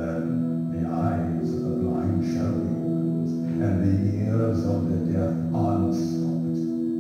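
Soundtrack of a scripture video: a steady musical drone of several held tones, with a voice intoning the words over it in short phrases.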